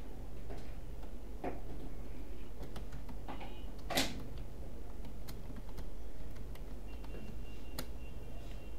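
Computer keyboard being typed on: irregular key clicks, one louder click about four seconds in, over a steady low hum.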